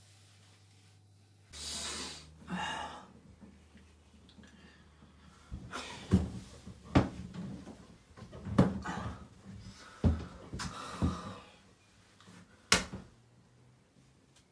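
Handling noises from a person shifting about in a small tiled bathroom: two breathy rustles, then a string of sharp knocks and clatters, the last one sharpest.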